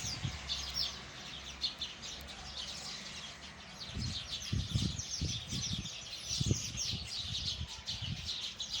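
A flock of small birds chirping together: a dense chorus of quick, high chirps. From about four seconds in, low thumps, likely handling or wind on the microphone, sound under them.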